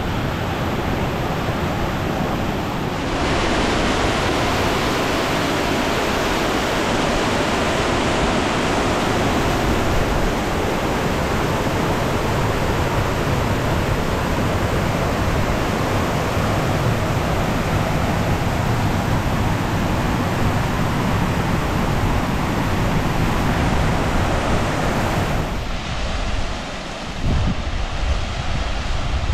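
Waterfall on a mountain stream rushing over boulders: a steady hiss of white water. It grows louder about three seconds in and drops back a few seconds before the end.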